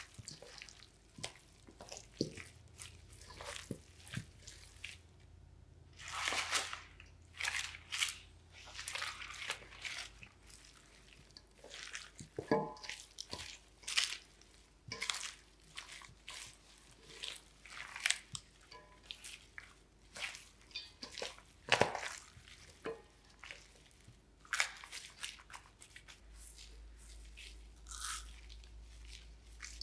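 Irregular crunching and squelching of ponytail radish kimchi, short crisp and wet sounds coming every second or so.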